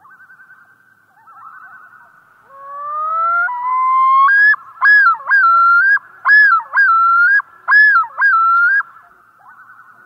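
Common loon giving its yodel: a long rising note about two and a half seconds in, then a string of loud, repeated up-and-down phrases that stops near the end. Faint wavering calls sound at the start and near the end.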